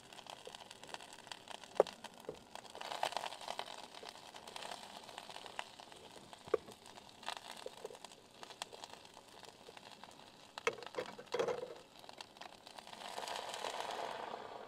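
Scattered small clicks, taps and rustles of things being handled in a cramped car interior. About 13 seconds in, a soft hiss builds as the water in a small electric cooker begins to heat toward the boil.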